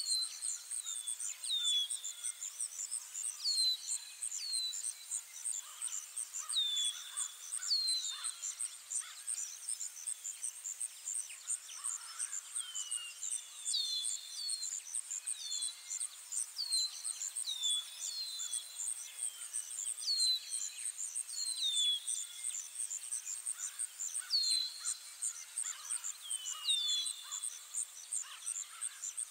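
Countryside ambience: birds giving short downward-sliding chirps, often in pairs, every second or two, over a steady high, rapidly pulsing chirr of insects such as crickets.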